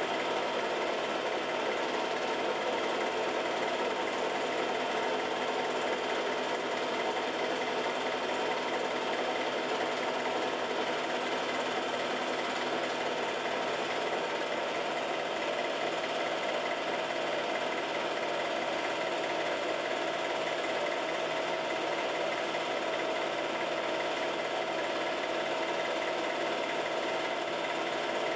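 Home-movie film projector running: a steady mechanical whir with a constant hum, unchanging throughout.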